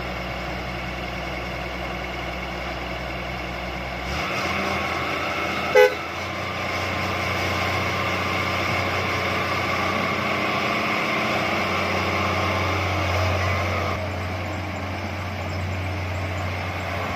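John Deere 160 excavator's diesel engine running steadily. About four seconds in its note rises and strengthens as it works under load, then eases off near the end. A short horn toot comes about six seconds in.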